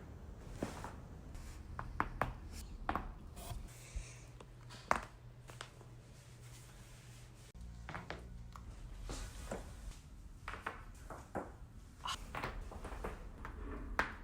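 Joints being deliberately cracked: a string of sharp, irregularly spaced pops and clicks, more than a dozen in all.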